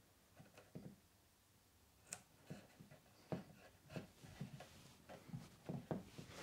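Faint, scattered small clicks and taps of hands working an upturned wooden chair, pressing on the ends of its legs.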